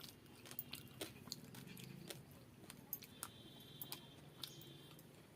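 Quiet eating sounds: a person chewing and eating by hand, with scattered small sharp clicks from the mouth and the food.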